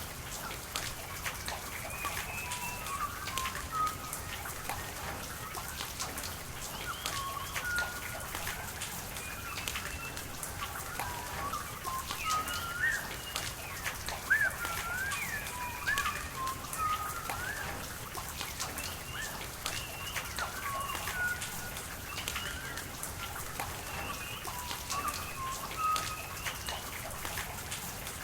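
Steady rain falling, with many sharp drops and drips, while birds call throughout in short, quick chirps.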